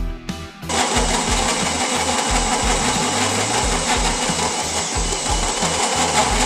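A power tool starts about half a second in and runs steadily with a dense, hissing noise, over background music with a steady bass line.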